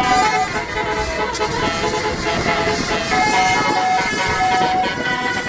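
Bus's Basuri telolet horn, a musical multi-trumpet horn, playing a tune note after note.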